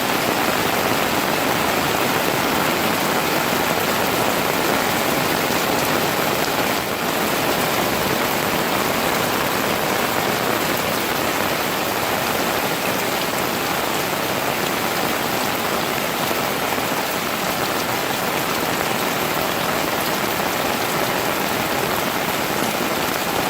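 Rain pouring steadily: a dense, even hiss of falling water.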